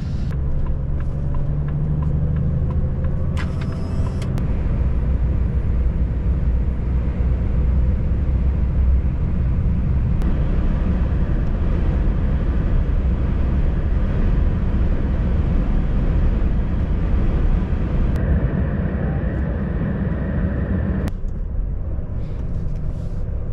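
Cab noise of a Volvo FH540 truck on the move: the diesel engine drones steadily under road and wind noise. The sound changes abruptly near the end.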